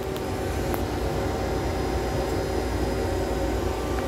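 Okuma Genos L200EM CNC lathe running, a steady machine hum with several steady tones over an even hiss.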